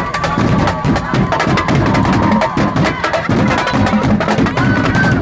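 A marching drumline playing a fast, driving beat on bass drums and snare drums, with dense rapid strikes throughout.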